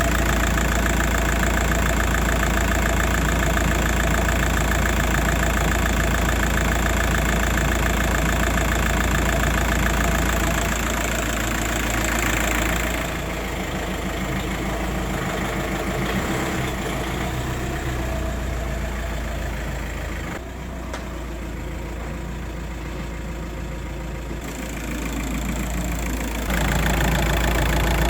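Volkswagen Passat B5.5's 1.9 TDI four-cylinder diesel idling steadily with its diesel clatter, running on fresh oil after an engine flush. It gets quieter about halfway through and loud again near the end.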